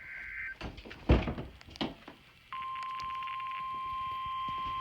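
A few handling knocks, the loudest about a second in, then from about halfway a steady single-pitch alert tone: the NOAA Weather Radio 1050 Hz warning alarm that opens the weekly test broadcast. Just before the knocks, a short two-pitched data burst of the emergency alert coding cuts off.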